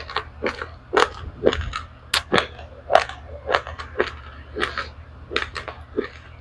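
Dry-roasted raw rice grains crunching and cracking between the teeth as a mouthful is chewed, close to the microphone: irregular sharp cracks, about two or three a second.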